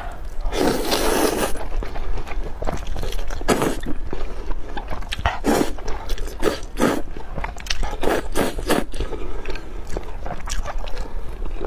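Close-miked mukbang eating of spicy rice noodles: one long noisy slurp about half a second in, then chewing with repeated short wet slurps and mouth smacks.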